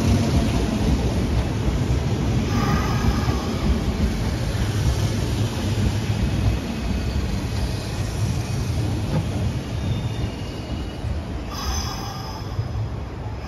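Hanshin 8000 series electric train running past, its wheels rumbling steadily on the rails and slowly fading as the last car goes by. Two brief high squeals from the wheels, about three seconds in and again near the end.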